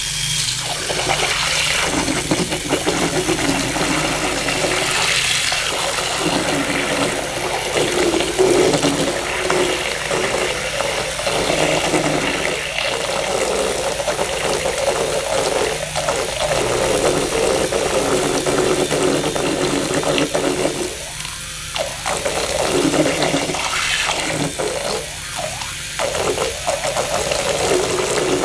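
Small homemade 3-volt DC motor drive spinning a propeller through gears and a 2 mm shaft, the propeller churning and splashing the water of a basin while the motor whirs. The churning eases briefly about two thirds of the way in.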